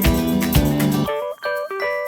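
Background music: a full arrangement with a steady beat drops away about a second in, leaving a sparse melody of short, separate notes.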